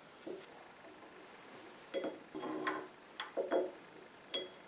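About five light metallic clinks and knocks as steel pallet-truck pump parts are handled and set down on a steel workbench, a couple of them ringing briefly.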